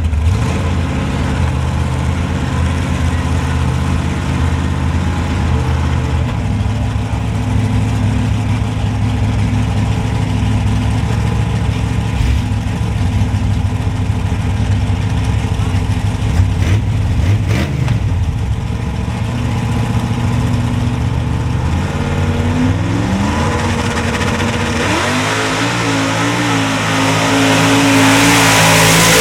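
Chevy two-and-a-half-ton mud-racing truck's engine running steadily, then revving with a rising pitch about 22 seconds in and again near the end, getting louder toward the end.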